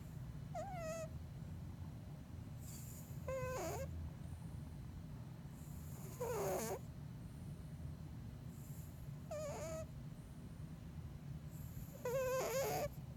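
Bengal cat snoring in deep sleep: five high, squeaky, wavering whistle-like snores with a breathy hiss, about every three seconds, over a faint low hum.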